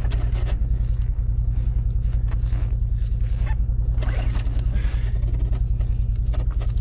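A Honda engine running steadily after a hard start in the extreme cold, with a fast, even pulsing low drone. A few short scraping handling noises come over it.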